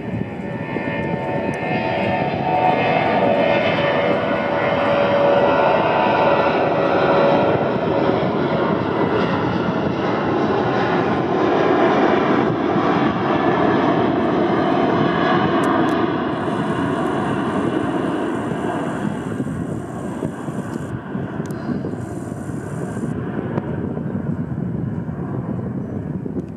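Twin jet engines of an Air Berlin Boeing 737 at takeoff power during the takeoff roll and lift-off: a steady roar with a whining tone, loudest through the middle and easing slightly toward the end.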